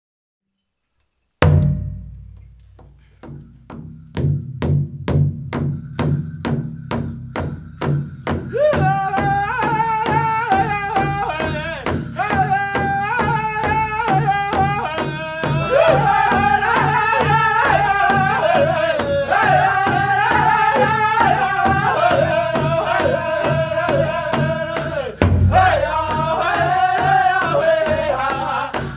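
Powwow drum group: a large drum struck in a steady beat of about three strokes a second, starting suddenly after a moment of silence. High-pitched group singing joins after about eight seconds and carries on over the drum.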